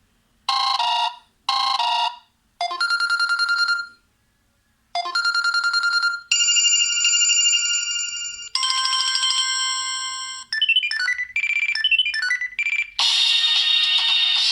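Samsung Galaxy S2 ringtones playing in turn as short electronic tone patterns. Two quick bursts of beeps come first, then a trilling tone, steady chime-like tones, and a run of single notes, each lasting one to three seconds with brief gaps between. About thirteen seconds in, a fuller, music-like ringtone begins.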